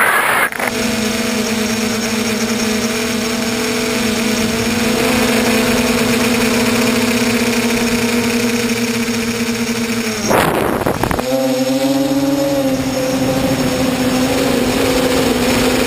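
Tricopter's electric motors and propellers buzzing steadily in flight, heard from the onboard camera, with air rushing past. A brief rush of noise comes about ten seconds in, after which the buzz wavers in pitch as the throttle changes.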